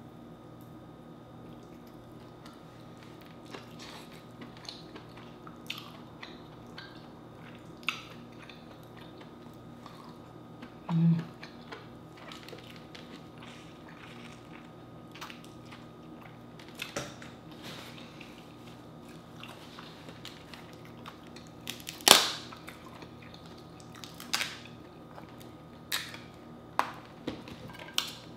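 Close-miked eating of a seafood boil: chewing, sucking and smacking on crawfish and lemon, with scattered small clicks and cracks of shell. One sharp crack about 22 seconds in is the loudest. A faint steady low hum runs underneath.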